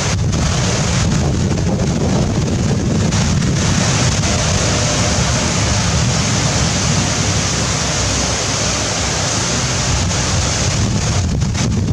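Storm wind gusting with heavy rain: steady loud rushing hiss over a heavy low rumble of wind buffeting the microphone.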